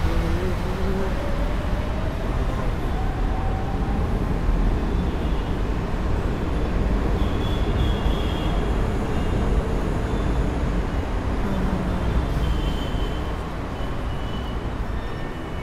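Steady low rumble of vehicle noise, easing off slightly near the end.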